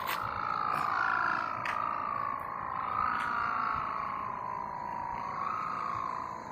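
A kite hummer (sendaren / sawangan) sounding in the wind: one continuous droning tone that wavers slowly up and down in pitch.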